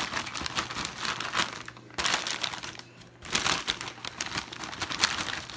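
French fries being poured from crinkling packaging into an air fryer basket: rustling crinkles with many small clicks as the fries land, pausing briefly twice.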